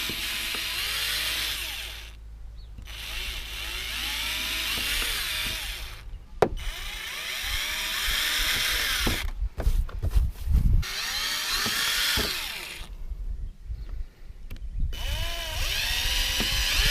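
Power drill with a small bit boring holes through a plastic car bumper cover, in about five runs of two to three seconds with short pauses between them. A sharp knock falls about halfway through.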